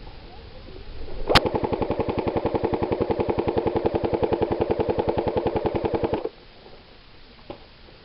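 Airsoft electric gun firing one long full-auto burst of about five seconds: rapid, evenly spaced shots over the whirr of its gearbox. The burst starts with a sharp crack and cuts off suddenly.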